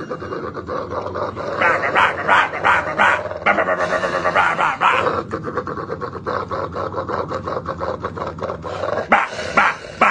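A dog making a quick, rhythmic run of short growling grunts, about four a second, like beatboxing.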